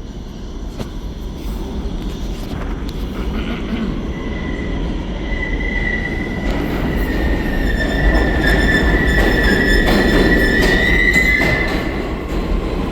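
Subway train running on the rails: a rumble that grows louder, with clacks over the rail joints and a high wheel squeal held from about four seconds in until near the end.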